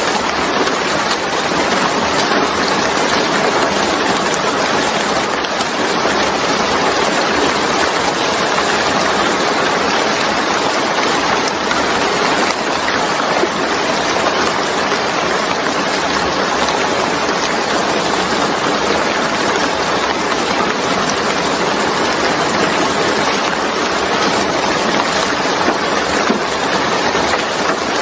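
Steady heavy rain falling, an even rushing hiss without pause.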